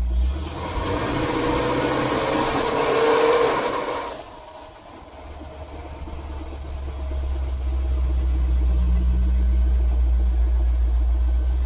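Ford E350's 351 Windsor V8 engine running. For the first four seconds it is revved with a loud rush, then it drops back and settles into a steady low rumble.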